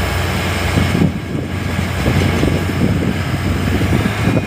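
Speedboat engine running steadily while towing a parasailer on a line, with wind buffeting the microphone and water rushing past the hull.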